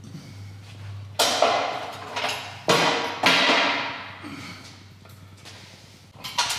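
Heavy metal clanks as a Ford 351 Windsor V8 block is rotated on its engine stand. There are three loud knocks, about a second, two and a half and three seconds in, each ringing out briefly, with lighter knocks between.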